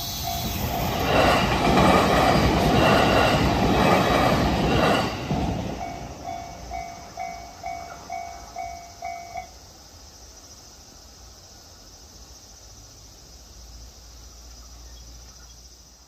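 A Shinano Railway train passes over the level crossing, loudest for about four seconds in the first half. Throughout, the crossing's electronic warning bell dings about twice a second, keeps going after the train has gone, and stops about nine seconds in as the crossing clears.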